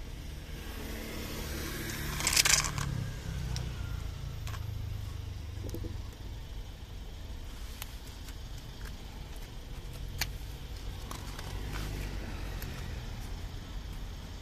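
A steady low rumble like a distant vehicle engine, with one loud scraping rustle about two seconds in as a plastic food container is handled and set on the asphalt, and a few faint clicks after it.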